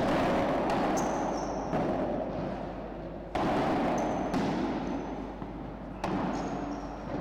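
Padel rally: the ball struck by solid, stringless padel rackets and bouncing off the court, about six sharp pops in all, each ringing on in the echo of the enclosed indoor court. Short high squeaks come between the hits.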